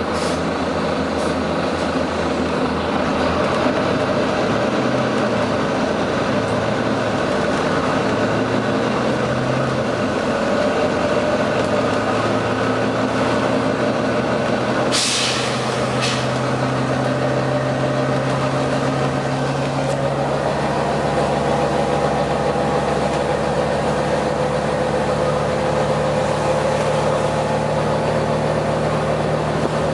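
Volvo B9TL bus's six-cylinder diesel engine running under load, its note climbing in steps as the bus pulls. A short, sharp hiss of air cuts in about halfway through.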